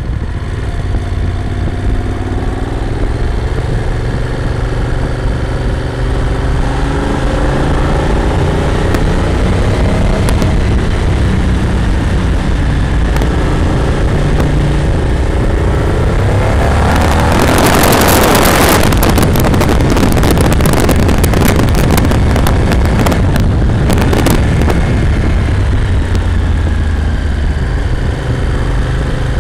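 Moto Morini V-twin motorcycle engine running on the move, its pitch rising and falling with throttle and gear changes. For several seconds past the middle, a loud rush of wind buffeting the bike-mounted camera's microphone covers much of the engine.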